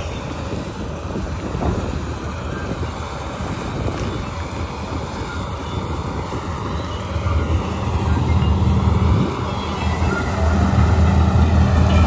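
Massey Ferguson 241 tractor's diesel engine running steadily, growing louder about seven seconds in and again near the end.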